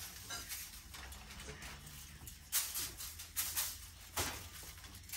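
Spice shaker being shaken over meat to sprinkle on seasoning: a few short rattling shakes, the strongest in the second half.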